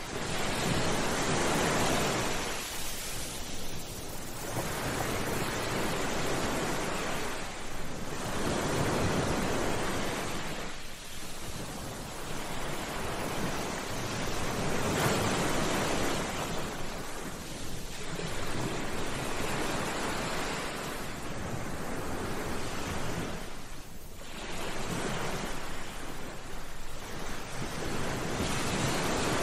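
Sea waves washing onto a beach, the surf swelling and fading about every four to five seconds.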